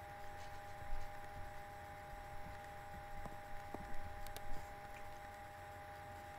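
A mouthful of peanut butter sandwich being chewed, a few soft mouth sounds now and then, over a steady electrical hum from the microphone.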